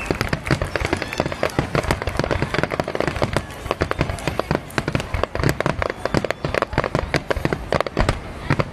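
Fireworks display: a dense, continuous barrage of aerial shells bursting and crackling, with many sharp bangs overlapping one another.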